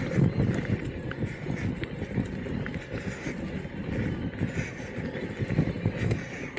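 Electric mountain bike riding over rough ground: a low rumble of tyre and frame noise, with frequent small knocks and clicks.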